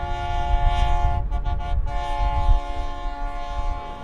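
Mount Washington Cog Railway train's multi-note horn sounding. A long blast breaks into a few short toots about a second in, then a second long blast that cuts off near the end, over a low rumble.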